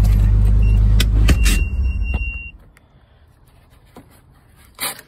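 1991 Nissan 300ZX Twin Turbo's 3.0-litre twin-turbo V6 idling, heard from inside the cabin, with a few clicks and a high steady beep over it; the engine sound stops about two and a half seconds in, leaving a quiet background with faint clicks.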